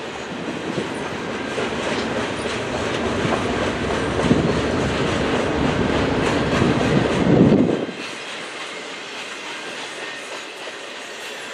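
Double-stack intermodal container train rolling past, its wheels clattering with rapid clicks over the rail. A low rumble builds and cuts off sharply about eight seconds in, leaving a lighter steady clatter.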